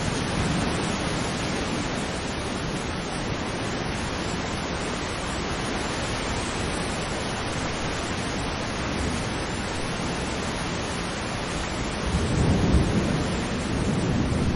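Steady rushing wind noise on the phone's microphone, louder and lower in a gust about 12 seconds in.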